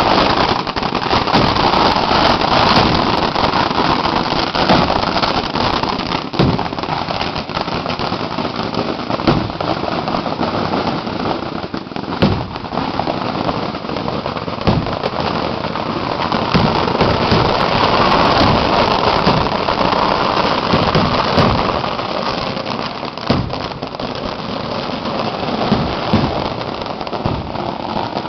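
Fireworks and firecrackers going off in a dense, continuous crackle of many small bursts, with occasional louder bangs standing out.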